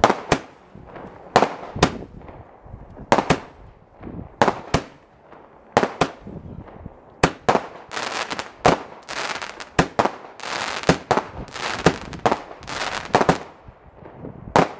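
Fireworks and firecrackers going off across the city: irregular sharp bangs, sparse at first, then coming thick and fast with crackling from about seven seconds in until near the end.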